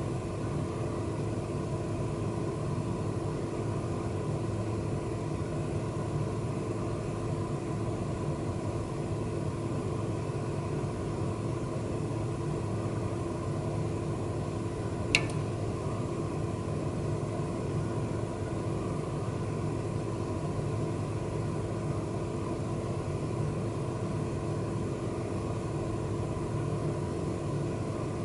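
Steady low droning hum with several held tones over a rumbling bed, unchanging throughout, and one sharp click about halfway through.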